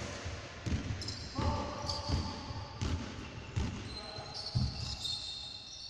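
A basketball being dribbled on a hardwood court, about seven bounces at a steady pace, with high squeaks of shoes on the floor.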